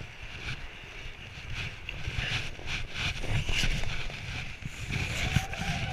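Ice skate blades scraping and gliding on rink ice, with the rustle and knocks of goalkeeper pads and stick, busier from about two seconds in. Near the end a held, pitched call rings out.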